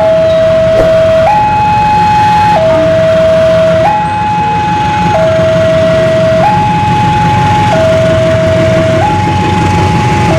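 Railway level-crossing warning alarm sounding its electronic two-tone signal, swapping between a lower and a higher note about every 1.3 seconds. Beneath it runs the low rumble of an approaching KAI diesel-electric locomotive.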